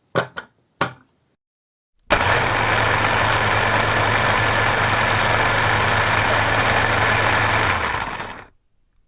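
A couple of short clicks, then an electric hand mixer's motor switches on about two seconds in and runs at one steady speed for about six seconds before winding down near the end.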